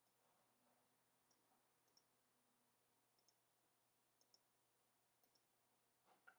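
Near silence: faint room tone with a few very faint clicks, some in pairs, about once a second.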